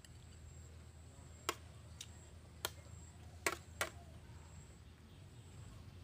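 Metal spoon clinking against a plate and a glass bowl as food is scooped up: five sharp clicks over about two and a half seconds, the last two close together.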